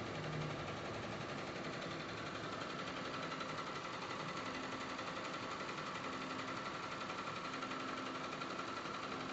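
Single-head computerized embroidery machine running, stitching steadily at a rapid even rate.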